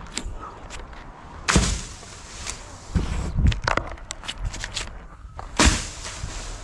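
Two heavy thuds about four seconds apart, with scattered knocks and clicks between them.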